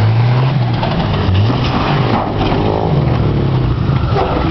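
Suzuki Vitara 4x4's engine revving hard under heavy throttle, its pitch rising and falling several times as the driver works it over rough ground.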